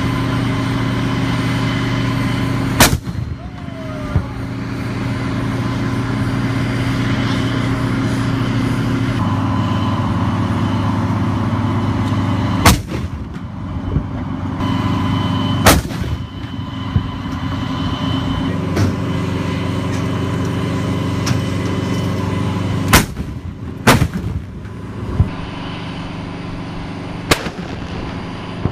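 M109 Paladin self-propelled 155 mm howitzers firing: about six sharp cannon shots at irregular intervals, two of them a second apart late on, with a few weaker reports between. Under them the vehicles' diesel engines run with a steady hum that drops in level about a third of the way through.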